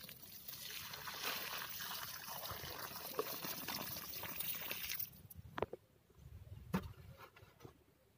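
Water pouring from a cut-open plastic jerrycan into a sandy basin around a plant, a steady splashing trickle that stops about five seconds in. A few faint taps follow.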